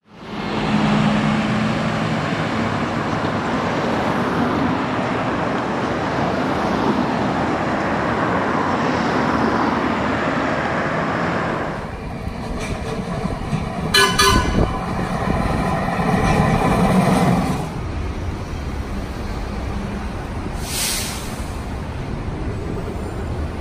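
Street traffic and a streetcar running along its track. About halfway through a vehicle horn gives a short toot, and then a vehicle rumbles past.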